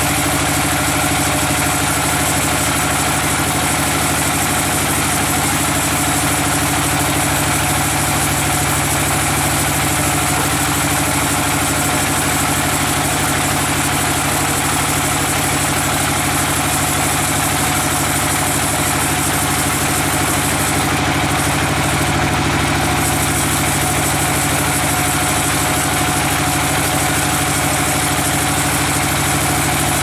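Sawmill band saw running as its blade rips lengthwise through a large hardwood log: a loud, steady machine sound that does not change in level.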